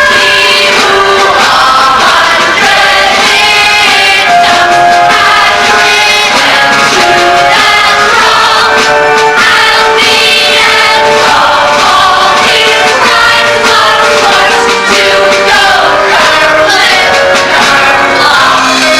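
Musical theatre number: singers with instrumental accompaniment, several voices singing at once.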